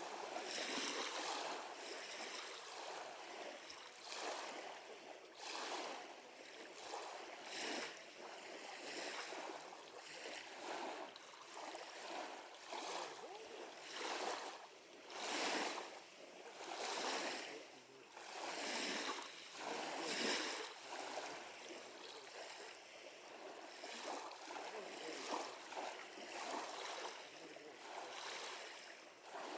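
Small waves lapping at a lakeshore: a soft rush of water that swells and fades every second or two.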